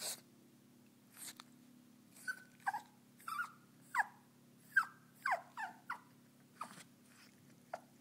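Pomeranian puppy whining: about ten short, high cries in irregular succession, each falling in pitch.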